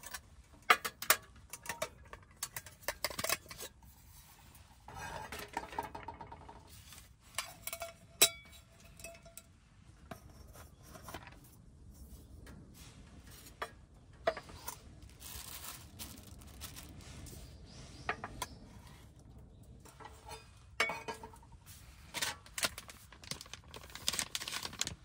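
Metal cookware and utensils being handled and set down: repeated clinks and knocks, with one piece ringing briefly about eight seconds in.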